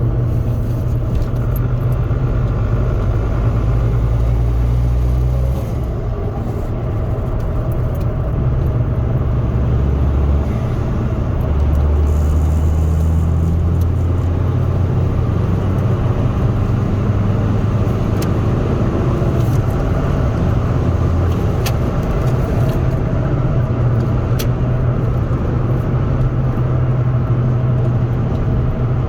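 Ford Focus Mk2 1.8 TDCi diesel engine and road noise heard from inside the cabin while driving. The engine note shifts several times, with a brief drop in level about six seconds in.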